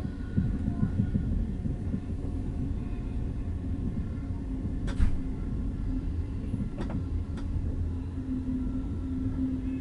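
Moving passenger train coach heard from inside: steady low rumble of the running gear on the track, with a steady hum. A sharp click about halfway through, and two more close together a couple of seconds later.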